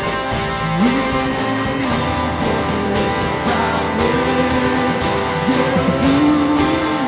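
Worship band music led by guitar: a sustained melody line sliding between held notes over strummed chords.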